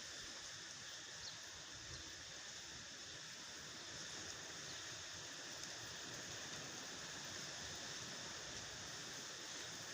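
Faint steady background hiss with no distinct events.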